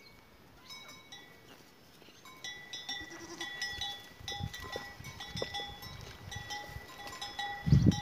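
Goats bleating in a livestock pen, with a thin, steady high-pitched tone behind them. A loud low rumble near the end as the phone is moved.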